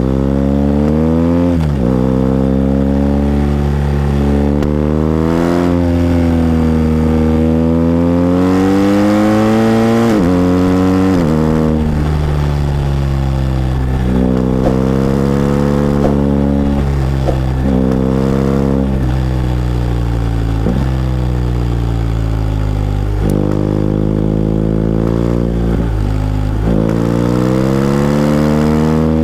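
BMW R 1250 GS boxer-twin engine pulling the motorcycle through a run of bends, its pitch rising and falling with the throttle. Several quick dips in pitch, each followed by a climb, mark gear changes.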